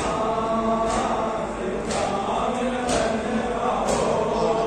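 Men chanting together, with a sharp beat striking about once a second under the chant.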